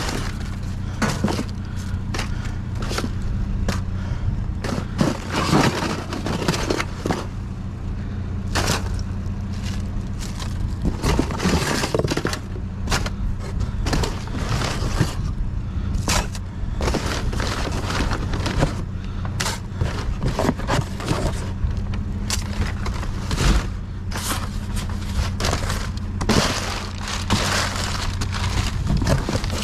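Aluminum scrap pieces clattering, scraping and knocking together as they are handled and pulled from a dumpster, with many irregular sharp knocks over a steady low hum.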